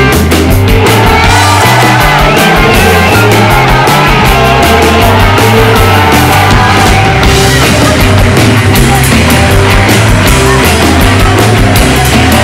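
Loud rock music with a steady drum beat and moving bass line.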